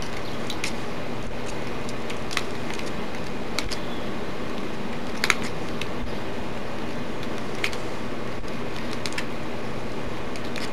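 Scattered light clicks of wire strands and pliers as a bundle of wire is twisted by hand, about six in all, the sharpest about five seconds in, over a steady background hum.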